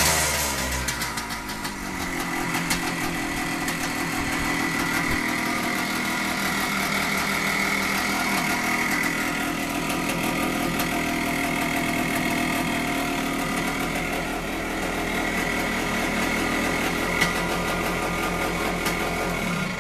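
1975 Harley-Davidson SX250's two-stroke single-cylinder engine idling steadily, its pitch falling back to idle in the first couple of seconds after a blip of the throttle.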